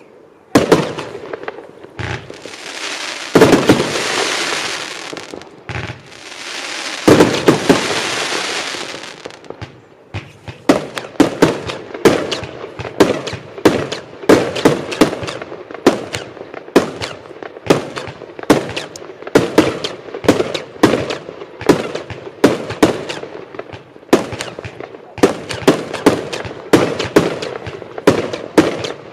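A 25 mm fireworks compound cake, the Evolution Fireworks Acatenango, firing. A few bangs come first, then two long stretches of dense rushing crackle, each about three seconds. From about ten seconds in, a fast, steady run of shots bursting follows, about two a second.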